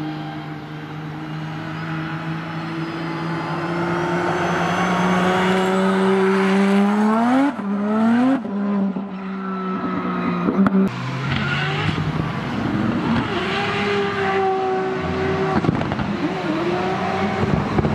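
Drift car engine of about 900 horsepower building revs steadily for several seconds, then revving sharply twice around the middle. For the rest, the car drifts: the engine note rises and falls with the throttle over squealing tyres.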